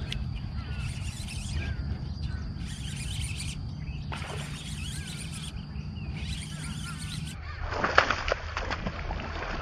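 A bass strikes a topwater popping frog lure with a splash about eight seconds in, with birds chirping in the background.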